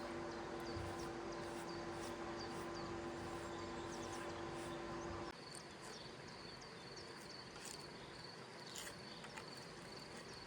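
A steady mechanical hum with one clear pitch cuts off abruptly about halfway. After it, a thin high insect trill and scattered short bird chirps carry on over quiet outdoor background.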